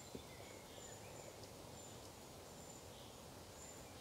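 Quiet woodland ambience: a faint hiss with short, high, distant bird chirps scattered through it, and one small click just after the start.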